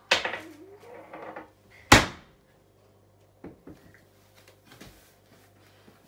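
Two sharp knocks, the second, about two seconds in, the loudest, followed by a few faint taps.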